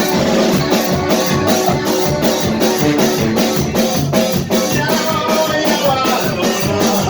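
A banda playing live music: brass and drums with a steady beat.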